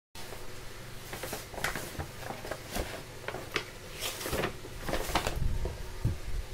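Speaker packaging being handled during unboxing: a quick string of short scrapes, clicks and rustles, with a few low thumps near the end.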